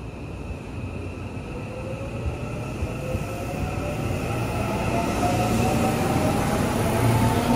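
JR West commuter electric multiple unit pulling out of the station and accelerating, its motors giving a whine that rises in pitch. Low rumble of the wheels on the rails underneath grows louder as the cars pick up speed.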